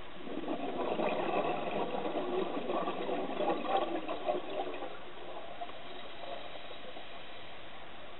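A diver exhaling through a scuba regulator underwater: a burst of bubbling for about five seconds, then only a steady underwater hiss.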